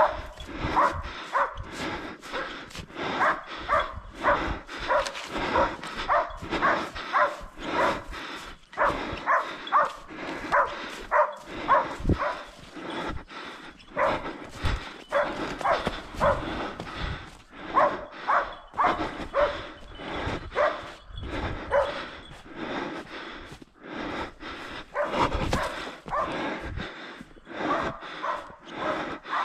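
Hunting dog barking over and over in a steady run, about two barks a second, with a brief lull about three-quarters of the way through.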